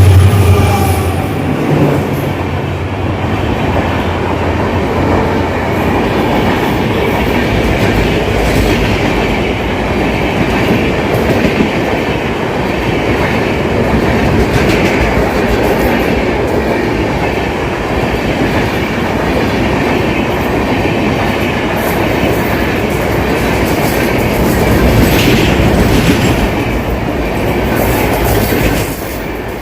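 Passenger train passing close by: a low steady hum for the first two seconds, then the continuous rumble and clickety-clack of coach wheels over the rail joints. The level drops just before the end.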